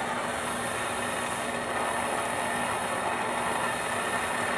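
Handheld gas soldering torch burning with a steady hiss while its flame heats a copper sweat fitting, the solder being drawn into the joint. A faint steady hum runs underneath.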